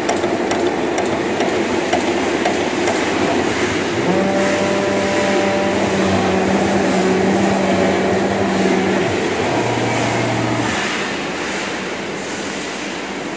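Flatbed CNC leather cutting machine running: a steady loud rush of machine noise, with humming motor tones that come in about four seconds in and cut out around nine and eleven seconds as the cutting head moves.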